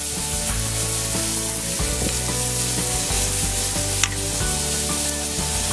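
Marinated boneless chicken legs sizzling steadily as they are laid on a hot grill grate, with a sharp click about four seconds in. The strong sizzle is the sign that the grill is well preheated.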